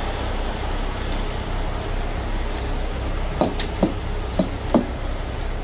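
Road train truck driving at highway speed: a steady low engine and road drone. Several brief sharp sounds come close together about three and a half to five seconds in.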